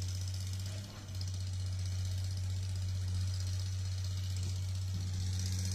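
Steady low hum of a running engine, idling without change.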